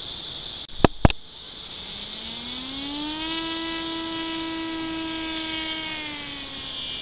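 Two sharp clicks about a second in, then an RC model airplane's motor and propeller spinning up to a steady whine for the takeoff roll, its pitch dipping slightly near the end as the plane lifts off.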